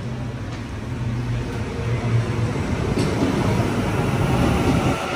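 Double-deck Sydney Trains electric train approaching along the platform and drawing alongside, its low hum and wheel and rail noise growing louder over the first couple of seconds.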